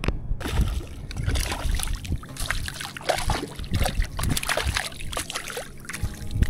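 A hooked small trout thrashing at the water's surface close by as it is reeled in: a run of quick, sharp splashes and water slapping.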